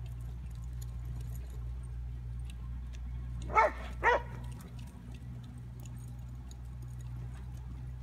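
Herding dog barking twice in quick succession, two short barks about half a second apart.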